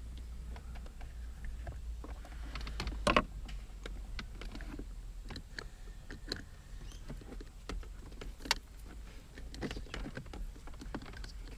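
Hands fitting a red leather replacement gear knob onto a car's automatic shifter: scattered clicks and knocks of plastic and metal parts, the loudest about three seconds in and again near eight and a half seconds, over a low steady hum.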